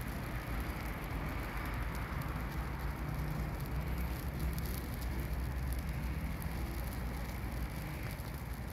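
Fire burning in a metal barrel heaped with green leafy branches: a steady rushing hiss with scattered faint crackles, over a low rumble.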